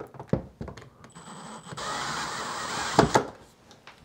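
Handheld power drill-driver running for about two seconds, driving a screw into the ventilator's sheet-metal outer door, with a thin high whine over it. It ends in a sharp knock. A few clicks and taps of handling come first.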